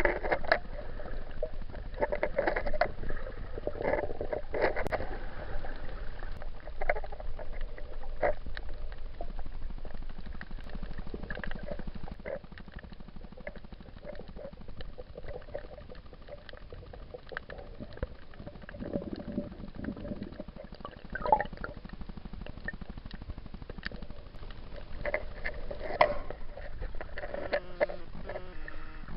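Muffled water sounds heard through a cheap action camera's waterproof case while snorkeling: gurgling and sloshing with scattered clicks and pops over a low rumble.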